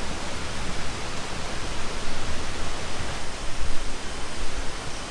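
Steady rush of a waterfall, an even hiss of falling water, with irregular low rumbles underneath.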